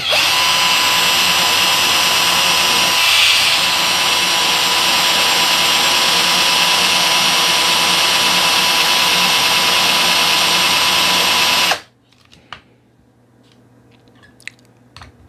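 Handheld electric drill running steadily with its bit pressed into the head of a stripped tri-point screw, drilling for grip to turn the screw loose. It cuts off suddenly near the end, leaving a few faint clicks.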